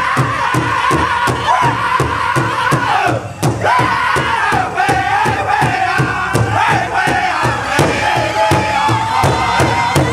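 Powwow big drum struck in a steady unison beat by several drummers, about three beats a second. A group of men sing high-pitched over it in the Northern powwow style, their voices dipping briefly about three seconds in.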